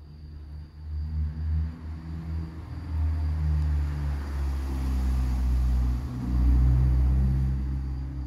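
A low engine rumble with a shifting hum above it, building about a second in and loudest in the second half.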